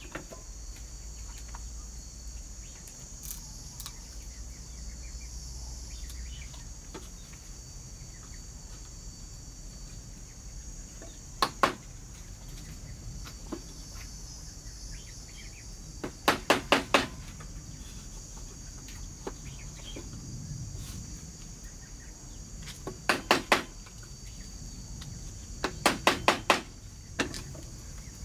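Quick bursts of sharp strikes, like a blade or tool hitting bamboo, coming four times in clusters of two to five blows. A steady high chorus of insects runs underneath.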